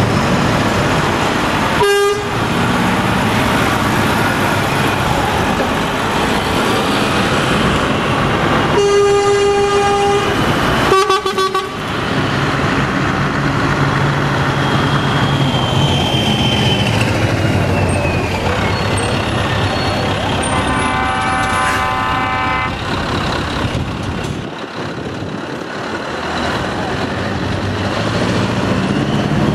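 Diesel lorry tractor units running and pulling away one after another, with several air horn toots: a brief one about 2 seconds in, a longer blast around 9 seconds, another short one just after, and a higher-pitched horn around 21 seconds.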